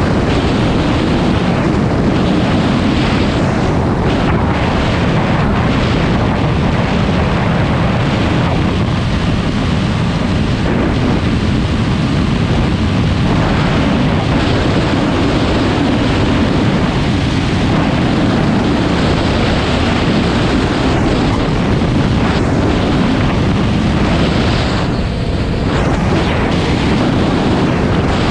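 Suzuki DR650 RSE's single-cylinder four-stroke engine running steadily under way, mixed with wind rush on the microphone. A brief lull about 25 seconds in.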